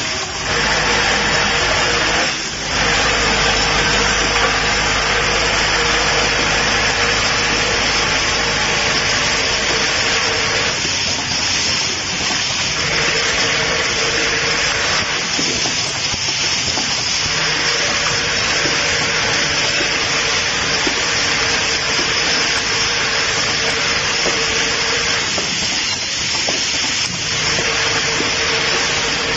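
Automatic cap assembly machine running, with its vibratory bowl feeder and rotary indexing table: a steady, dense mechanical noise under a held hum that breaks off briefly several times.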